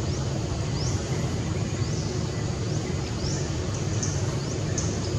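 Steady low background noise, with short rising high-pitched chirps repeating about once a second.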